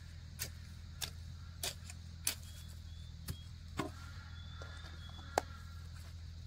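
A series of sharp knocks or taps at irregular intervals over a steady low hum, with a few faint high chirps.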